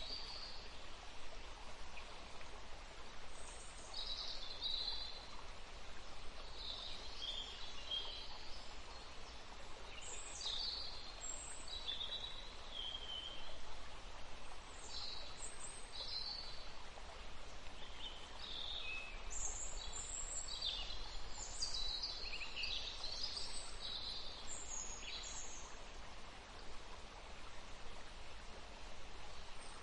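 Small birds chirping and calling, with short high notes and quick pitch glides scattered throughout, over a steady faint hiss.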